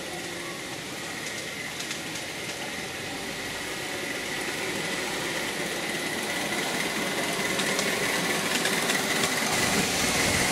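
Miniature ride-on garden-railway train running past on its track, getting louder toward the end.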